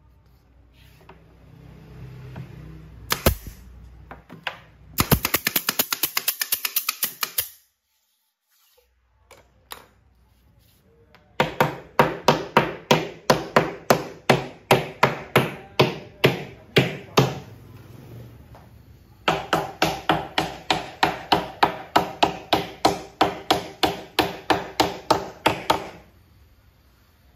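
Wooden subwoofer cabinet panels being nailed together: runs of sharp, evenly spaced strikes on the wood. A short, quicker run comes first, then two long runs at about three strikes a second.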